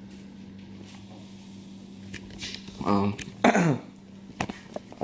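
A person's voice making a short wordless sound about three seconds in, then a louder one falling in pitch, with a few sharp clicks after it. A steady low hum lies under it throughout.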